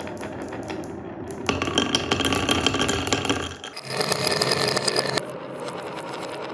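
Marbles rolling and clattering down wooden marble run slopes, a steady rumble full of small clicks. About one and a half seconds in it grows louder and brighter, dips briefly, then settles back to a softer roll near the end.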